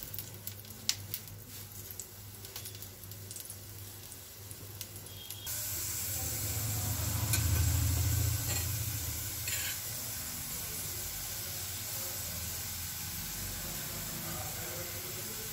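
Kuttu (buckwheat-flour) paratha frying on a hot nonstick pan: faint taps and clicks at first, then a sudden steady sizzle from about five seconds in, loudest a couple of seconds after it starts.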